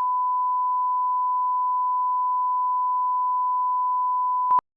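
Steady 1 kHz sine test tone, the line-up tone at the head of a film, held unchanged and then cut off abruptly with a short click about four and a half seconds in.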